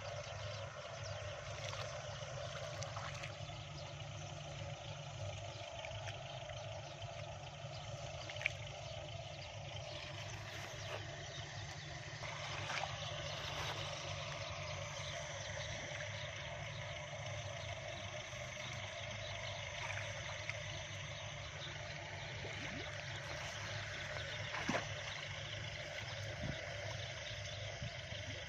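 A steady low drone like a distant engine, over light water sloshing from a man wading and groping by hand in a shallow muddy canal. A few sharp clicks come through, one about a third of the way in and another near the end.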